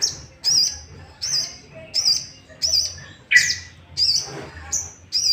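Sogok ontong (crimson sunbird) calling: a run of short, high, wavering chirps repeated about every half to three-quarters of a second, with one louder, fuller note about three seconds in. This is the bird's agitated call, used as a lure to rouse other males to sing.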